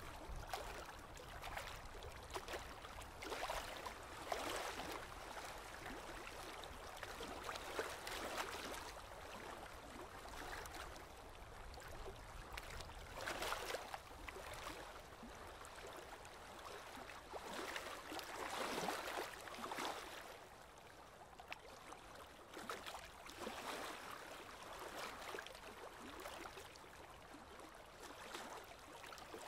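Small waves lapping and splashing at the water's edge, in irregular swells every second or two, over a low steady rumble.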